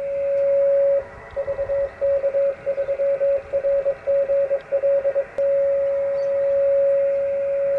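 Morse code beacon on 2 metres heard through a Yaesu transceiver's speaker: a single steady tone, keyed into Morse characters from about one to five seconds in, then held as a long unbroken carrier.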